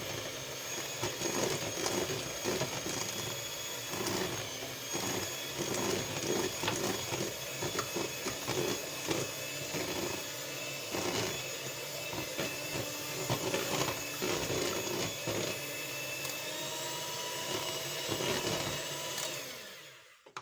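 Electric mixer running steadily, beating a cake batter of eggs, sugar, oil and citrus juice. It winds down and stops near the end.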